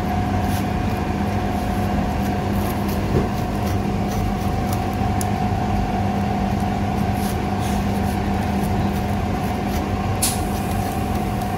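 Steady machine hum of kitchen equipment, holding two constant pitches, one low and one mid. Over it come light, scattered crisp ticks as a pizza cutter wheel rolls through the baked crust of a stuffed garlic bread.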